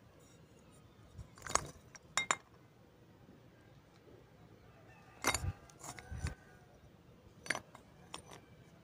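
Broken shards of fired clay pottery clinking and knocking against one another in a terracotta bowl as a hand picks through them: five short groups of clinks, a second or more apart, the loudest cluster a little past halfway.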